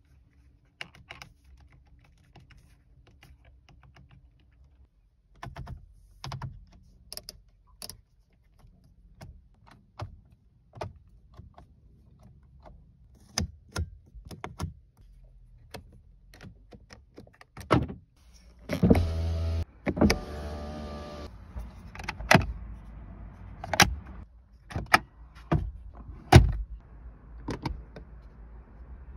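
Clicks and knocks of a VW Golf Mk7's cabin controls being worked one after another: steering-wheel buttons, the rotary headlight switch and the overhead sunglasses compartment. About two-thirds through, an electric motor runs for about two seconds.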